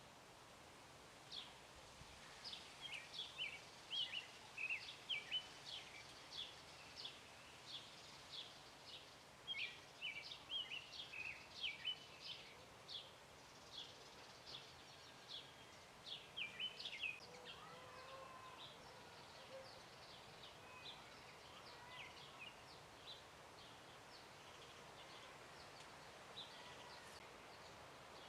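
Small birds chirping in quick runs of short, high notes, busiest in the first half and thinning out later, over a faint steady outdoor background.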